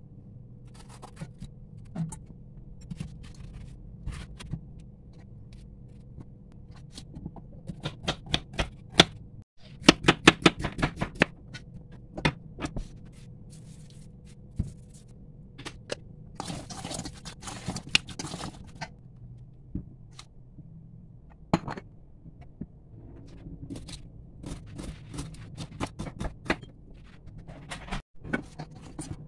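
Kitchen food-preparation sounds: a knife chopping bitter gourd on a wooden cutting board in quick runs of strokes about a third of the way in, and scrapes and knocks of a wooden spoon in a stainless steel bowl, over a steady low hum.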